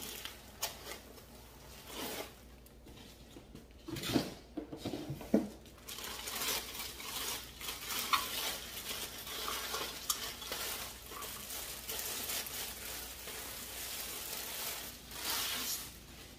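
Clear plastic bag crinkling and rustling as it is pulled off and unwrapped from a metal object, with a few light knocks about four to five seconds in.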